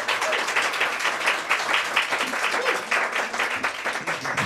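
Small audience applauding at the end of a song: many hands clapping fast and densely, with a voice or two calling out over the clapping near the start and again a little past halfway.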